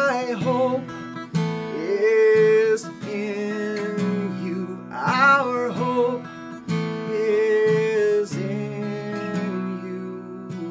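A man singing a slow worship song while strumming an acoustic guitar, with sung phrases every few seconds over steady strummed chords.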